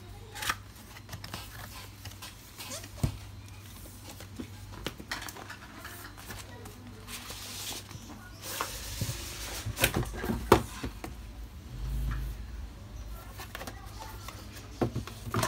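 Cardboard graphics-card box being handled and opened: scattered taps and scrapes of cardboard, a brief sliding rustle about seven seconds in, and a cluster of sharper knocks around ten seconds in, followed by a dull low thump.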